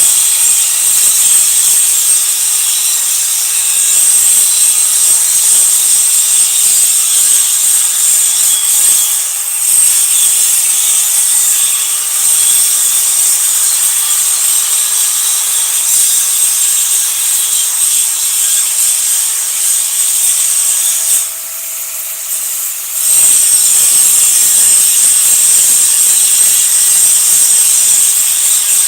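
Electric arc welding: the arc sizzles and crackles steadily. It breaks off for about two seconds a little after two-thirds of the way through, then strikes up again.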